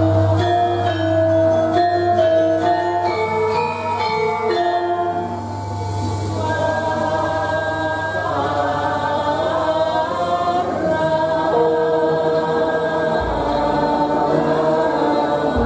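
Javanese gamelan music for a bedhaya dance: metallophones play struck notes over a deep, long-ringing low note that sounds at the start. About five seconds in, a chorus of singers comes in and carries a slow melody over the ensemble.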